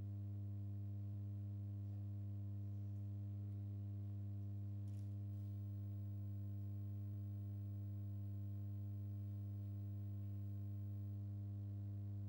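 Steady low electrical hum with a ladder of higher overtones, unchanging throughout: mains hum in the audio system.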